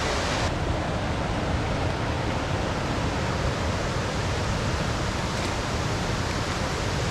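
Roar of the River Ure pouring over the stepped limestone cascades of Aysgarth Middle Falls, a steady, even rush of water.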